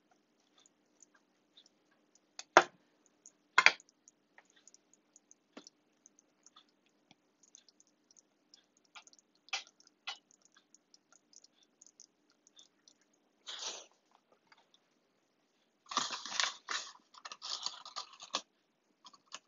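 Apple pie filling with almond flakes simmering in a saucepan, with small scattered pops and crackles. A wooden spoon knocks sharply against the pan twice a few seconds in, and near the end there are a couple of seconds of louder clattering and rustling.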